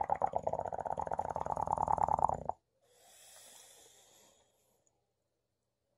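English bulldog snoring in its sleep: a long, loud, fluttering snore that stops about two and a half seconds in, then a softer breath. The snore is typical of a flat-faced breed's narrow airway.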